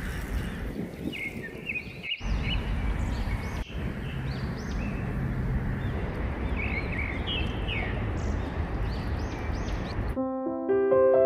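Outdoor ambience: a low steady rumble with small birds chirping again and again, cutting out briefly twice. About a second before the end, gentle piano music begins.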